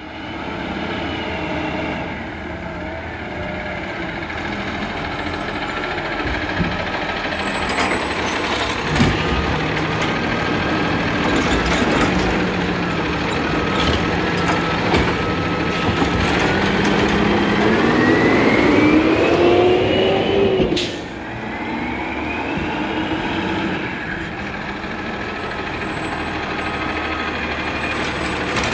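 2010 Peterbilt garbage truck with a Wayne Curbtender automated side-loader body, its diesel engine running as it pulls up to the curb and works its arm. A little past halfway the engine revs up, rising in pitch for several seconds while the hydraulic arm lifts and dumps a cart, then drops back abruptly with a sharp hiss or clank.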